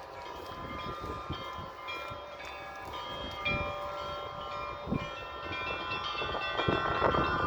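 Church bells ringing: several bells of different pitches struck in quick succession, their tones overlapping, with louder strikes near the end.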